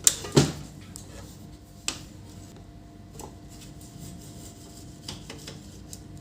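A few sharp clicks and knocks of a screwdriver and plastic printer parts being handled while a laser printer is taken apart to remove its power supply screws. The two loudest come at the very start, another about two seconds in, then a few faint ticks.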